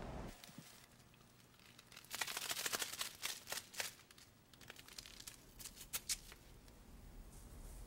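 Paper crinkling and tearing as a small packet is handled and opened by hand: a dense run of crackling about two seconds in, then a few scattered sharp crinkles.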